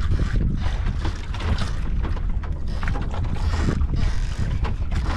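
Wind buffeting the microphone and water slapping against the hull of a small wooden fishing boat, a steady gusty rumble.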